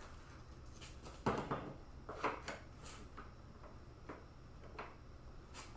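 A few light knocks and clicks of parts and tools being handled, irregularly spaced, the loudest about a second in, over a faint low hum.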